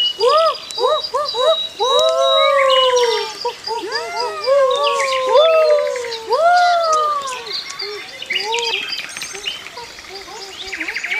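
Animal and bird calls: a run of short cries that rise then fall in pitch, thinning out after about seven seconds, with higher bird chirps throughout.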